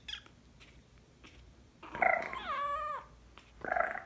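Calico kitten meowing: one meow of about a second, starting about two seconds in, its pitch sliding down, then a shorter cry near the end.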